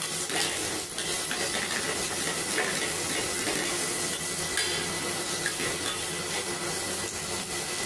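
Sliced carrots and onions sizzling in oil in an aluminium pan, stirred with a wooden spatula that knocks and scrapes lightly against the pan; a steady hiss.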